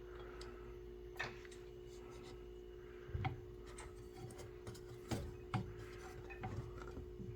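Scattered light knocks and clicks of metal parts and tools being handled while a sub-frame connector is fitted, about six in all, over a steady hum.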